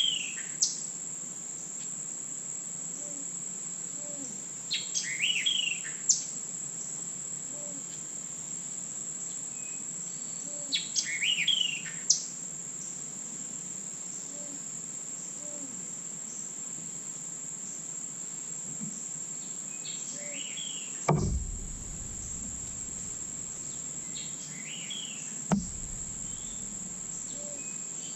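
Summer woodland sound: a steady high-pitched insect drone, with a bird calling in short chirping phrases every five or six seconds. Several sharp clicks, and two dull thumps in the last third.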